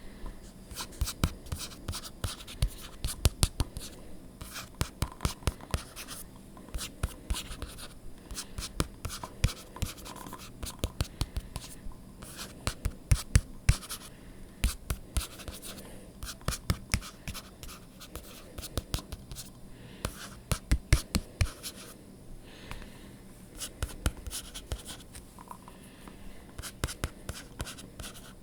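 ASMR tapping and scratching on objects by hand: quick, irregular clusters of sharp taps over a softer scratching, with the loudest runs of taps a few seconds in, around the middle and about two-thirds of the way through.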